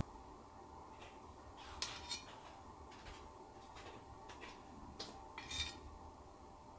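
Faint, occasional clinks of kitchen dishes and utensils, a few light knocks about two seconds in and again around five seconds, over a quiet room.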